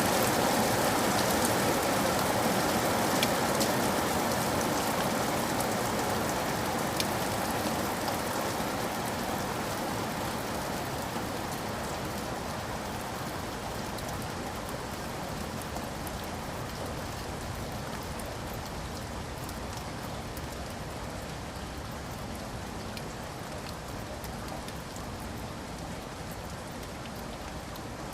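Steady rain falling on a surface, a dense hiss with scattered individual drop ticks, gradually getting quieter throughout.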